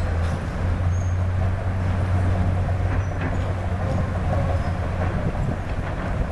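Heavy diesel earthmoving machine running steadily with a deep, even engine hum.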